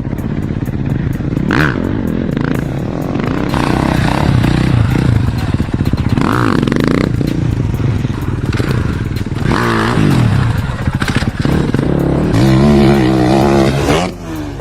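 Off-road vehicle engine revving, its pitch rising and falling several times, loudest near the end.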